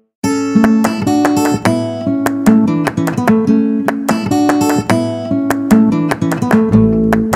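Background acoustic guitar music, rapid plucked and strummed notes that ring on, starting a moment in after a brief gap.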